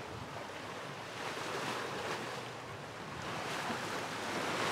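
Sea waves washing around a catamaran under sail, with wind blowing on the microphone: a steady rushing noise.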